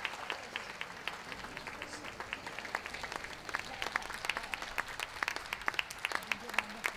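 Audience applauding, the separate hand claps distinct and coming several a second throughout.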